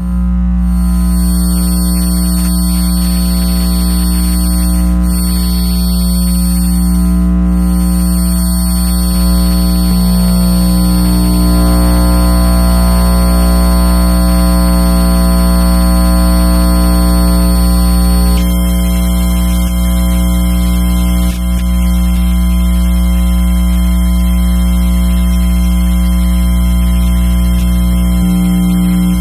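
Electromagnetic interference from an electronic device, picked up by an RFI probe: a loud, steady electrical buzz with a deep hum and several high whining tones. The tones shift about ten seconds in, and the high whines change abruptly a little past halfway.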